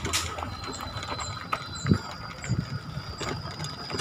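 Mountain bike rolling over a rough dirt and gravel track: a low rumble from the tyres, with irregular clicks and rattles from the bike over the bumps and the rear hub's freewheel ticking.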